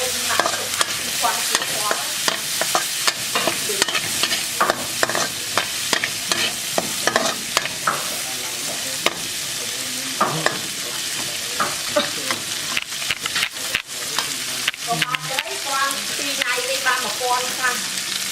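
Food sizzling in hot oil in a pan while being stirred, with frequent sharp clicks and scrapes of a utensil against the pan. Short squeaky chirps come in near the end.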